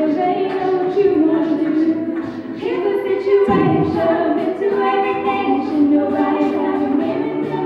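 Mixed-voice a cappella group singing, a woman's lead voice over sustained backing harmonies, with vocal percussion keeping a steady beat. About halfway through, a low voice slides down in pitch.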